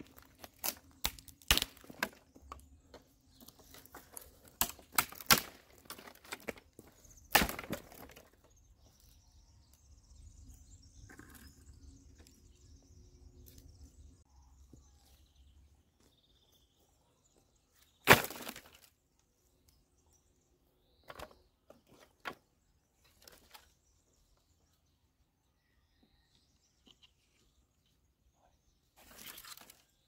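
Sharp cracks and knocks of wood being worked by hand: branches snapping and logs knocking together as they are fitted into place. Irregular strikes come thick for the first eight seconds, with the loudest single crack about eighteen seconds in and a few lighter knocks after.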